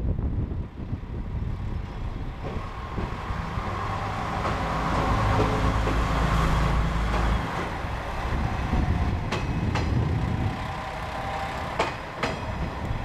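KiHa 120 diesel railcar moving slowly through the station tracks, its diesel engine running with a deep rumble that is loudest a few seconds in and drops off sharply at about seven and a half seconds. Near the end come a few sharp clicks of wheels over rail joints.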